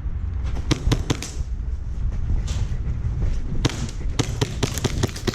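Airsoft guns firing: a few sharp single pops, then a fast burst of shots near the end, over a low rumble.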